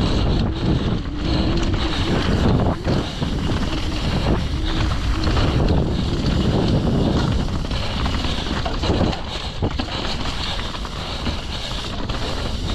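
Wind rushing over the microphone of a mountain bike descending a trail at speed, with tyre and chassis noise and scattered sharp knocks as the bike hits rough ground.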